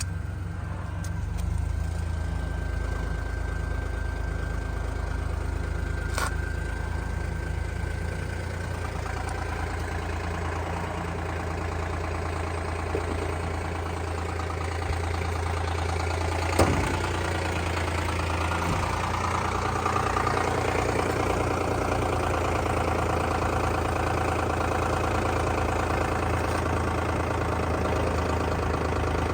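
2010 Lexus RX350's 3.5-litre V6 idling steadily with an engine knock. A single sharp tap stands out about two-thirds of the way through.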